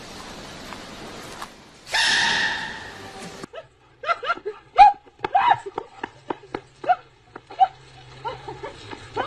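A dog gives one loud, drawn-out cry about two seconds in, then a fast run of short yips and whines.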